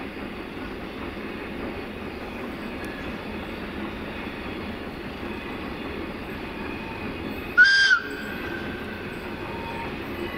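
A single short, high-pitched toot from the horn of an LDE2100 (060-DA) diesel-electric locomotive, the 'whistle loco', about seven and a half seconds in. Under it runs the steady sound of the approaching freight train.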